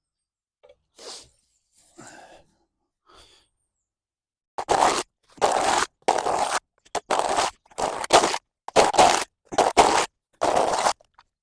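Spade scraping and pushing through mud and leaf litter on a paved path, about ten quick, gritty strokes, roughly one and a half a second, starting about halfway in after a few faint rustles.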